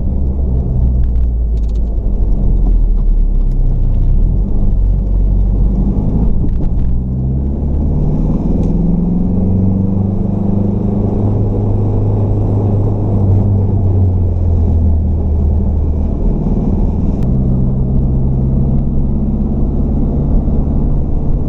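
Dodge Neon SRT-4's turbocharged 2.4-litre four-cylinder engine running as the car is driven, its note rising about a third of the way in, holding, then dropping back and running steady.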